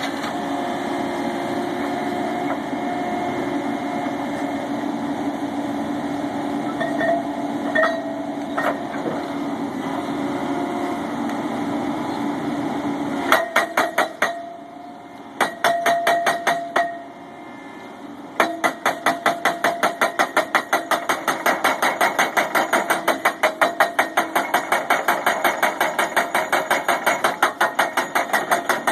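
Engine running steadily, then a rock hammer pounding steel pipe piling with rapid, evenly spaced blows. It starts about halfway through with two short bursts and pauses between them, then hammers continuously.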